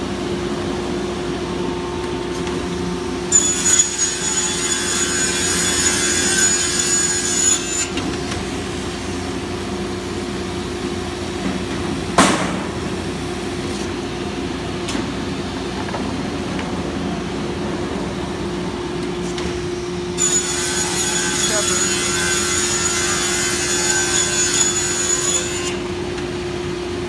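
Vertical panel saw's circular blade cutting through a plywood sheet in two passes, the first about three seconds in and the second about twenty seconds in, each lasting about five seconds, over a steady low hum. A single sharp knock falls between the cuts.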